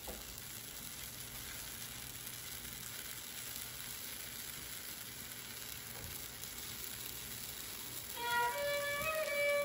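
Egg omelette frying gently in a nonstick pan over low heat, a soft steady sizzle. About eight seconds in, background music with a violin comes in.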